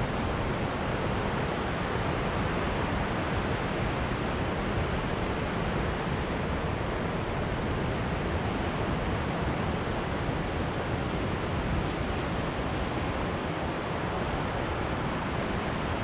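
Surf breaking on rocks and the rocky shore at the foot of sea cliffs, heard as a steady, even rushing noise.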